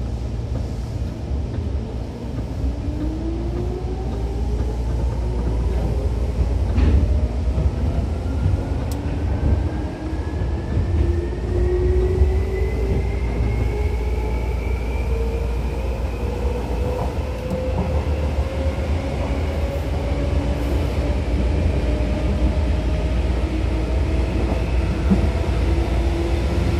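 Seibu 2000 series electric train running, its traction motor and gear whine rising steadily in pitch as the train gathers speed, over a constant low rumble from the running gear on the rails. A few short knocks come about seven seconds in.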